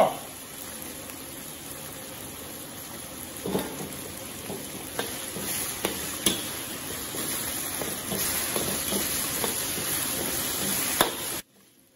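Spices and hotpot base sizzling in hot oil in a steel wok while a ladle stirs and scrapes through them, with a few light ladle clinks against the wok. The sizzle cuts off suddenly near the end.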